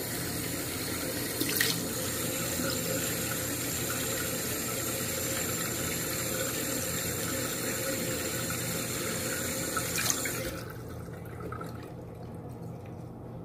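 Tap water running steadily into a bathroom sink while the face is washed by hand; the running water stops about ten and a half seconds in, leaving quieter room sound.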